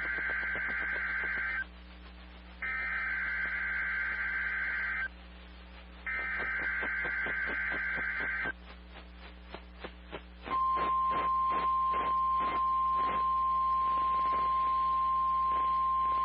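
NOAA Weather Radio Emergency Alert System Required Weekly Test. The SAME digital header sounds as a buzzy data screech, repeated three times with about a second between bursts. After a short pause with faint clicks, the steady 1050 Hz weather-radio alarm tone starts about ten seconds in and holds.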